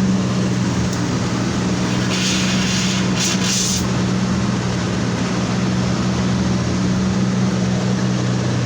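A steady low mechanical hum with an even noise over it, and a brighter hiss that swells for about two seconds, starting about two seconds in.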